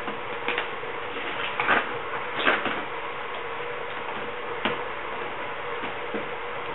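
A few short knocks and rustles of something being handled close by, the loudest about two and a half seconds in, over a steady hiss and faint hum.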